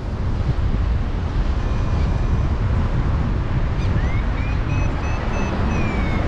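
Strong wind buffeting the microphone, a steady loud rumble with no break. About four seconds in, a faint high whistling tone rises, holds and falls away.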